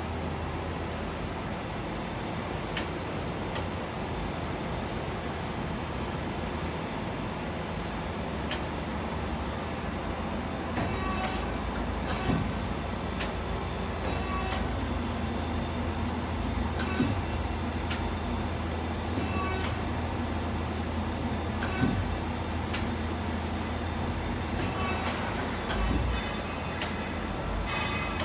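Steady low hum of powered shop machinery, with a faint high beep repeating every second or so in the first part and scattered knocks and clicks from about ten seconds in.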